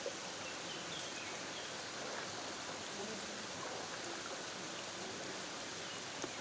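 Steady rush of flowing spring water running over the rocks of a hot-spring pool and its small falls.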